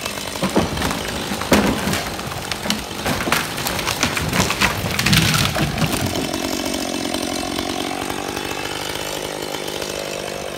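A large oak tree cracking and crashing down through the surrounding branches as it is felled, with sharp snaps and a heavy crash about five seconds in, while a Husqvarna chainsaw idles. After that the chainsaw idles steadily on its own.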